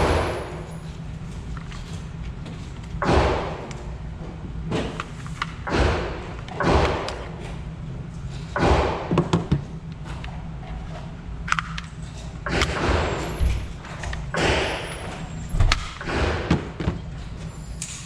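A series of heavy thumps at irregular intervals, about fifteen of them, each followed by a short echo, over a steady low hum.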